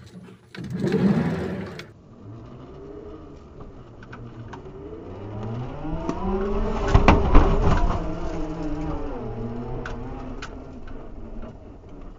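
Series 3 Land Rover engine running under changing load, its note rising to a peak about halfway through and then settling back, recorded by the dashcam's microphone. A brief rustle of handling comes at the start.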